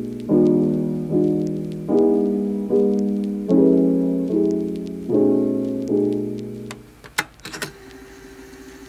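Background music of slow piano chords, a new chord struck slightly faster than once a second and each one fading away. The chords stop about seven seconds in, leaving a few short clicks over a faint steady tone.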